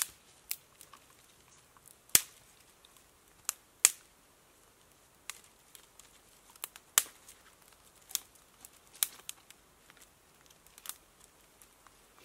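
Thin dry twigs snapped by hand to break up kindling: a string of sharp cracks at irregular intervals, about a dozen, some much louder than others.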